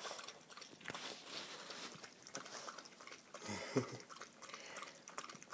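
Small dog lapping water from a stainless steel bowl: a run of quick, wet, irregular lapping clicks. A brief low pitched sound comes in about three and a half seconds in.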